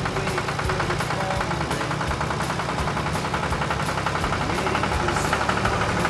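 Vintage tractor engines, a Massey Ferguson 135 and a Ford, running at low speed as they drive past, with a rapid, even firing beat.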